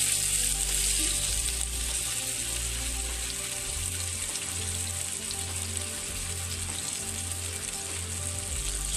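Masala-marinated fish sizzling as it fries in hot oil on a flat tawa griddle: a steady, dense hiss that slowly eases.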